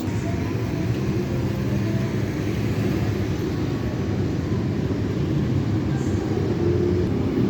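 Steady low rumble of vehicle noise, even and unbroken.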